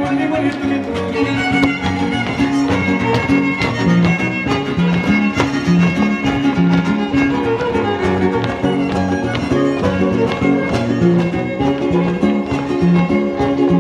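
Son huasteco (huapango) played by a huasteco string trio: a fiddle carries the melody over strummed guitars that keep a quick, steady rhythm.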